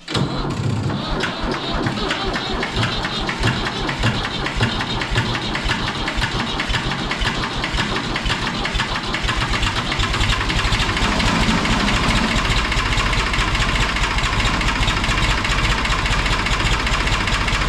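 Ford 4000 tractor engine starting after sitting unused for three or four months, then running; its beat becomes steadier about ten seconds in.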